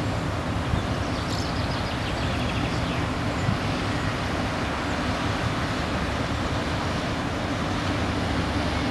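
Steady low rumble of the passenger cruise ship's engines and hull moving through the water as it passes close by.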